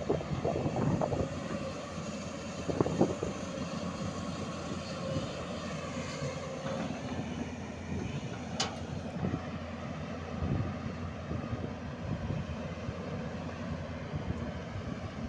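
Hyundai 210-7 crawler excavator's diesel engine running steadily under work, with a few knocks in the first three seconds and a single sharp click about eight and a half seconds in.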